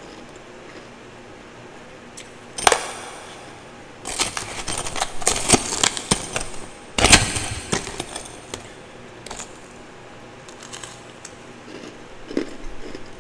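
Metal spoon digging and scraping through twice-refrozen powdery ice in a plastic tub: a sharp clink about two and a half seconds in, then a dense crunchy scraping from about four to seven seconds that ends in one loud knock, with a few light ticks after.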